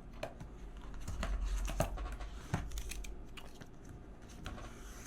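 Hands handling a watch band and its packaging: irregular rustling, crinkling and small clicks as the band is pulled out.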